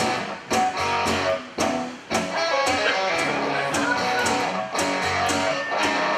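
Live rock band playing an instrumental passage: electric guitar chords over a steady drum beat.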